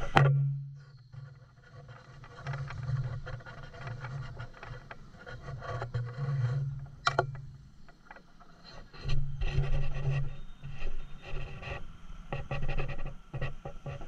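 Sound of riding a motorbike: a low engine hum that comes and goes, with rubbing and wind noise on the camera microphone and a sharp knock at the start and another about seven seconds in.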